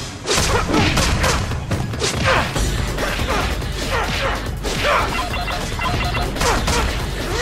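Action soundtrack: music under a rapid barrage of impact sound effects, with repeated falling swoops.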